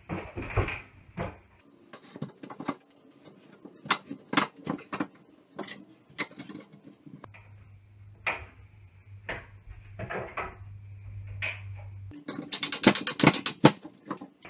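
Scattered knocks and clatter of wood and tools as ceiling framing is fitted in a gutted shower alcove. A low steady hum comes in about seven seconds in, and a loud burst of rapid clicking follows near the end.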